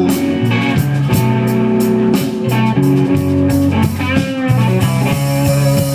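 A live blues band plays a slow blues: the electric guitar plays a fill of bent notes between vocal lines, over electric bass and a drum kit.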